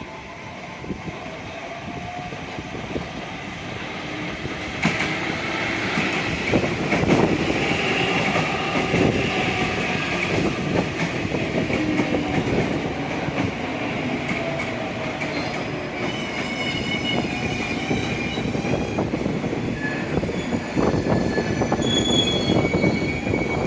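A train running on the rails close by, building up over the first five seconds and staying loud, with wheel-on-rail rumble and high squealing tones from the wheels that come and go, more of them in the last third.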